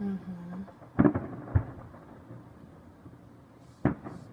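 Aerial fireworks bursting: a quick double bang about a second in, another bang half a second later, and a third near the end.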